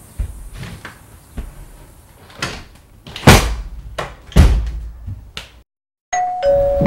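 Wooden door banging shut, then a few more thumps against it, the second knock the loudest. Near the end the sound cuts out briefly, and then two steady held tones begin.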